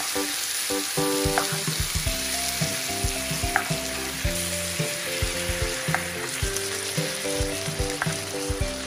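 Thin slices of beef sizzling as they fry in a nonstick pan, a steady hiss, with a few sharp clicks of the utensil against the pan as the meat is turned, the loudest about three and a half seconds in.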